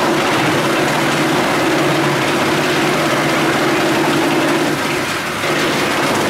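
Skorpion 350EB drum wood chipper and its chip conveyor running, a steady machine hum under a dense rushing noise as wood chips stream down the discharge chute. The hum drops out briefly about five seconds in.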